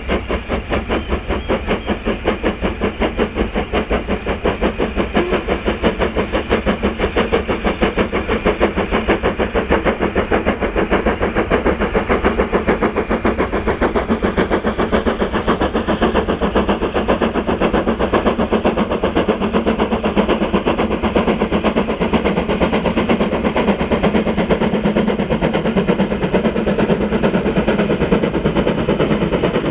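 Steam locomotive hauling a freight train and working hard under steam, its exhaust beats coming in a fast, even rhythm and growing slightly louder as it approaches.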